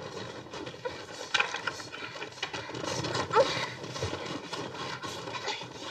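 Two people grappling on a mattress: heavy breathing and short strained grunts, two of them about one and a half and three and a half seconds in, over scuffling and rustling of bedding.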